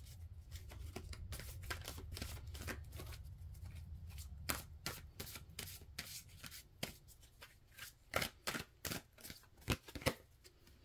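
Tarot deck being shuffled by hand: a quick run of card snaps and riffles, thinning to a few separate snaps in the last few seconds.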